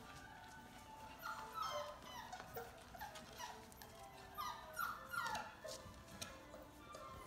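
Young Labrador retriever puppies whimpering and yelping: many short, high cries that fall in pitch, coming thick and fast from about a second in.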